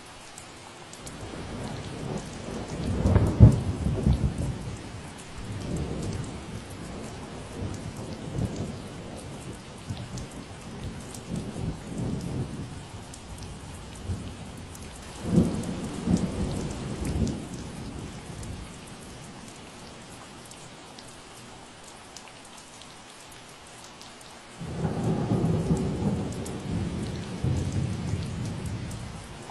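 Steady rain falling, with rolls of low rumbling thunder: the loudest about 3 s in, another around 15 s, and a long roll starting suddenly about 25 s in.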